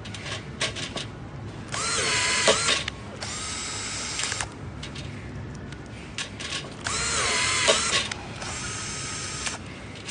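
Cordless drill driving a rivet nut gun adapter in two cycles. Each cycle has a few clicks, then a loud run in which the motor's pitch dips and bends under load as the nut is pulled, then a steadier run.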